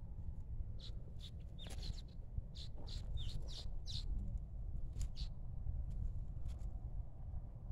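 Small birds chirping: a dozen or so short, high chirps, mostly between about one and five seconds in, over a low steady rumble.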